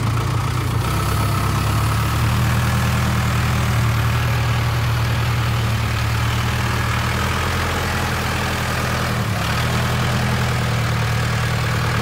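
Case backhoe loader's diesel engine running steadily at low speed, with a brief dip about nine seconds in.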